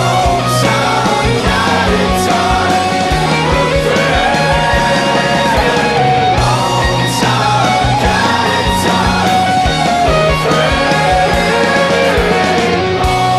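Rock song playing, with guitar, drums and a singing voice.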